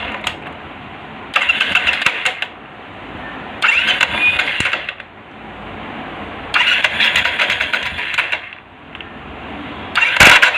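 Royal Enfield motorcycle's electric starter pressed four times, each press giving a burst of clattering, knocking clicks lasting a second or two. This 'tuck tuck' knock on the self-start is typical of a worn one-way starter clutch.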